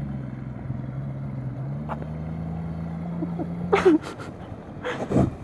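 Small motorboat's outboard motor running steadily, its pitch rising about two seconds in as it speeds up. Near the end, the hum gives way to a few short loud bursts.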